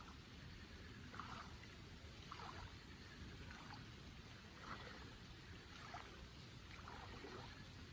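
Faint water sounds: a soft splash or lap about every second and a quarter over a steady low hiss of rain.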